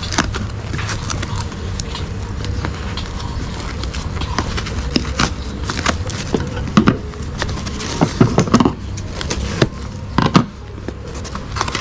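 Scissors snipping through a cardboard box, with crackling of plastic bubble wrap and clunks of the box being handled; several louder knocks come in the second half, over a steady low hum.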